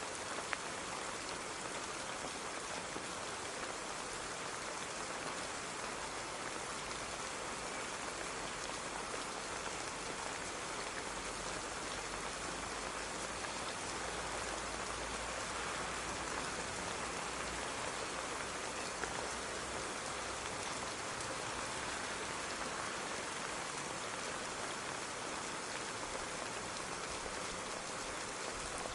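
Steady rain falling, an even hiss of drops hitting a surface with occasional individual drop ticks.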